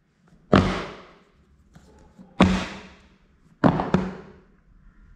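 Three heavy impact hits, each dying away over about half a second, the third followed closely by a smaller second hit, over a faint low steady hum: edited cinematic boom sound effects.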